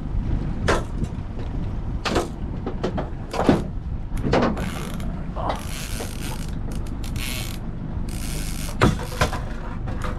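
Fishing reel working against a hooked coho salmon: several short runs of buzzing, ratcheting clicks from the reel, with a few sharp knocks, over a steady low rumble.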